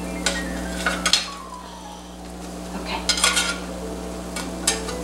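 Spatula scraping and clicking against a ridged grill pan as pancakes are lifted off, over a light sizzle of pancakes frying in oil. The sharpest clicks come about a second in and in a cluster around three seconds in.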